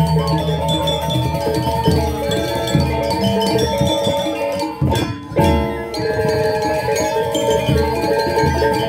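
Balinese gamelan gong kebyar playing: bronze metallophones ringing in interlocking patterns over low drum strokes, with a brief break about five seconds in before the ensemble comes back in.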